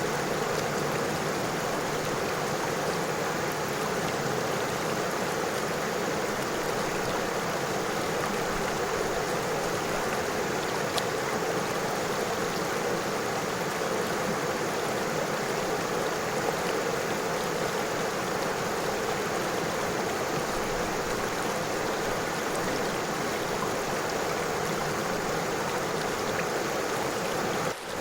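River water flowing over stones: a steady, even rush with a momentary drop just before the end.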